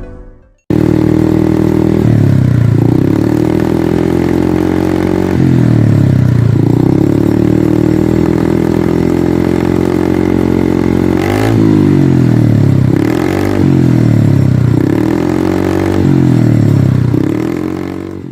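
Yamaha Fino carburetted scooter engine revving through a hollowed-out exhaust with no baffle. It is held at high revs, with the revs dropping and climbing back a couple of times, then four quick throttle blips in the second half before it dies away.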